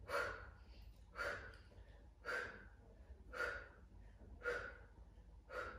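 A woman's short, sharp exhalations, six of them about a second apart, each one pushed out with a rep of a lying abdominal lift.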